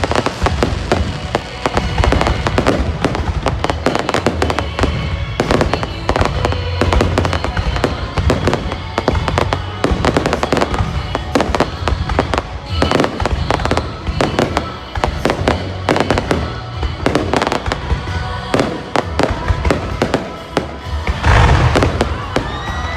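Fireworks display bursting continuously, a dense run of bangs and crackles, with music playing underneath.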